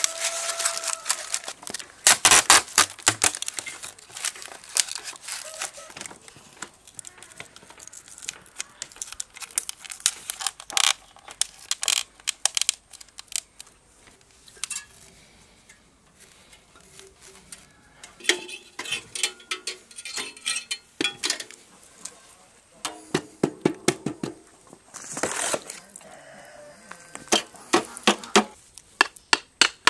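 Crinkling, rustling and tearing of white packing material being pressed by hand into a welded steel form, with scattered sharp clicks and knocks of handling. Near the end, a quick run of sharp clicks as a tool works wet concrete in the form.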